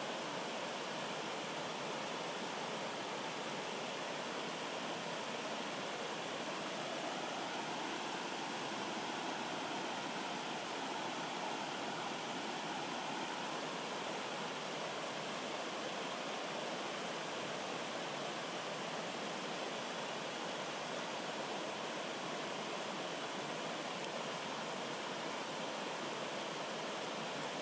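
Rocky forest stream rushing over boulders and small cascades: a steady, unbroken rush of water.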